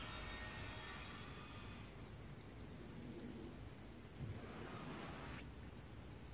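Crickets chirping outdoors in one steady, high-pitched trill.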